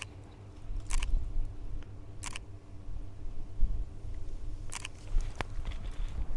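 Camera shutter clicking about five times at uneven intervals, over a steady low rumble.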